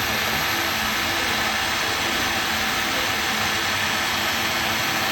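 Small 12 V DC motors of a low-cost three-axis CNC milling machine running steadily: the milling motor turning while an axis motor drives the table along its lead screw.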